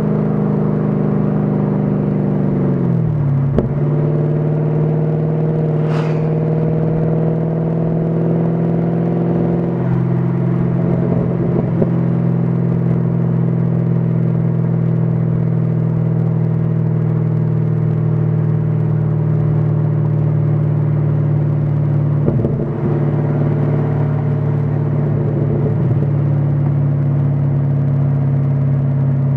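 Pontiac G8 GXP's LS3 V8 through Kooks mid-length headers, an X-pipe and straight pipes, running at low revs, heard at the exhaust. Its pitch falls about three seconds in, then the engine holds a steady note.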